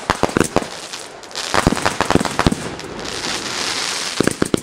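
Aerial fireworks battery firing in quick succession: a rapid run of sharp bangs, with a dense crackling hiss in the middle and another cluster of bangs near the end.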